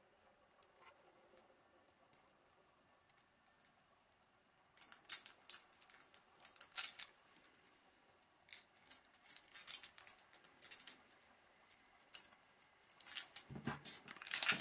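Metal keys clinking against one another and against a stainless steel wire-rope key ring as they are handled and threaded onto it: faint ticks at first, then clusters of sharp metallic clicks and jingles from about five seconds in. A dull thump about a second before the end.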